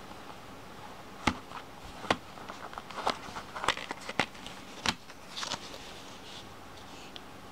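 Small cardboard knife box being opened with gloved hands, its inner tray slid out of the sleeve: a run of sharp clicks and taps of cardboard over about four seconds, followed by a brief soft rustle.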